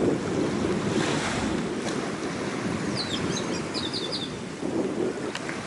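Small waves washing on a shingle-and-sand shore, with wind buffeting the microphone. A bird chirps a quick run of short high notes about three seconds in.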